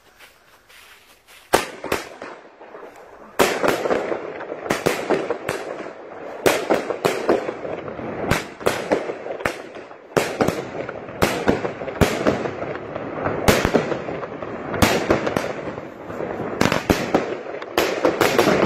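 Firework battery firing a rapid volley: two early bangs, then from about three seconds in a quick run of sharp shot and burst bangs, roughly one to two a second, over a continuous rushing hiss.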